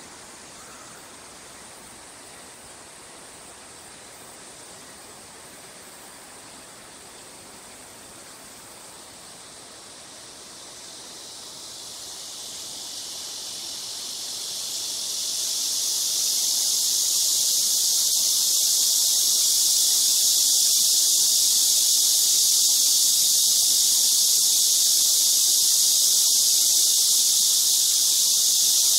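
A chorus of cicadas swells in about ten seconds in, rising over several seconds to a loud, steady, high-pitched buzzing hiss, over faint steady outdoor background noise.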